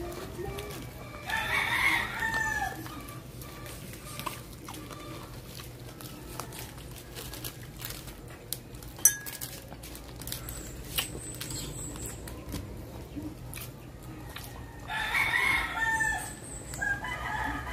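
A rooster crowing, once early on and again near the end, over a low steady background hum, with a single sharp click about nine seconds in.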